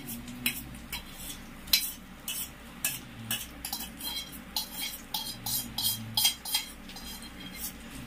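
Steel cookware and utensils clinking and scraping against each other, short sharp metallic clicks about two or three times a second, the loudest a little under two seconds in.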